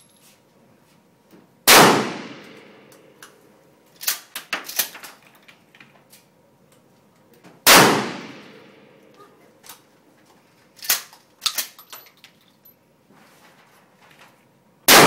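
Three 12-gauge pump-action shotgun shots about six seconds apart, each with a long echoing tail. Between shots, a quick series of clacks as the pump is racked to chamber the next shell.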